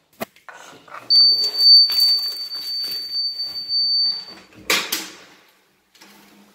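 An electronic door lock or entry system gives a steady, high beep for about three seconds over shuffling on a tile floor. Then comes two sharp, loud clacks from the door, a quarter second apart.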